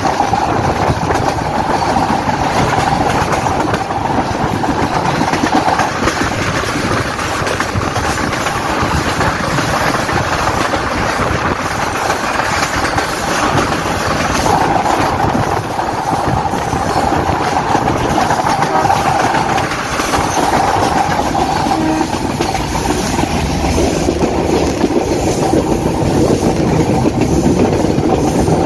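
Metre-gauge passenger train running, heard from an open coach doorway: continuous wheel-on-rail running noise with a hum that comes and goes.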